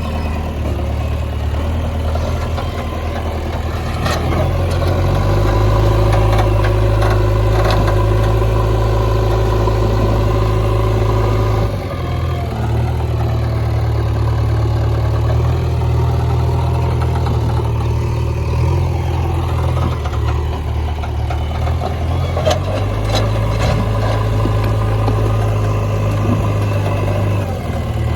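JCB backhoe loader's diesel engine running steadily. It picks up and settles back several times as the load changes, and there are a few sharp knocks.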